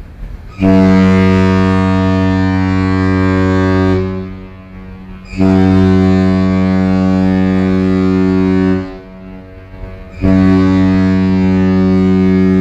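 Cruise ship's horn sounding three long blasts of one deep, steady note, each about three and a half seconds, with about a second between them; the third is still sounding at the end.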